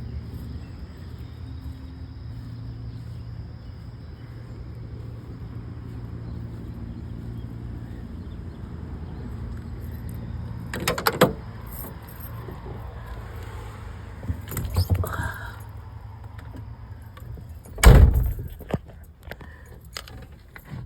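A steady low engine hum, then clattering and jangling about eleven and fifteen seconds in, and a heavy thump near the end, a vehicle door being shut.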